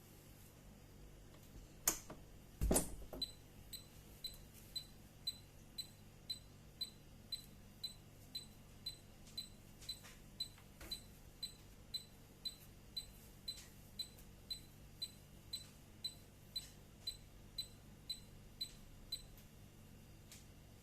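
Magnetic door alarm unit with a password keypad giving short high beeps at a steady pace of about two a second, about thirty in all. They are preceded by a click and a louder knock, and followed by one more click near the end.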